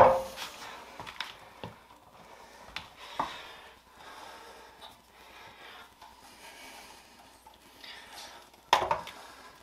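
Handling noise from a heavy stock snowmobile muffler being lifted and set down over a glass bathroom scale on a tile floor. There is a sharp knock at the start, a few light knocks and clicks over the next few seconds, and a short noisy burst near the end.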